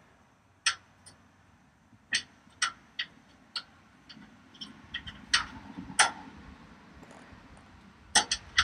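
Metal toggle latch on a folding tailgate tray clicking and snapping as it is worked open and shut while its lock tension is adjusted: about a dozen sharp, uneven clicks, with a quick cluster near the end and a soft rustle of handling in between.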